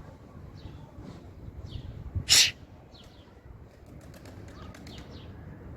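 Domestic pigeons in a rooftop loft: a brief loud flurry of wing flapping about two seconds in, with faint short high chirps repeating throughout.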